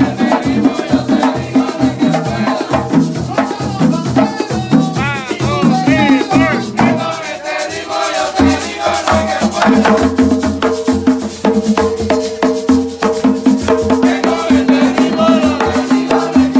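Live Puerto Rican plena: several panderos (hand-held frame drums) beat a fast, interlocking rhythm while voices sing over them.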